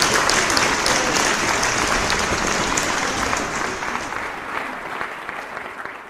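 Crowd applauding, a dense patter of many hands clapping that fades away over the last couple of seconds.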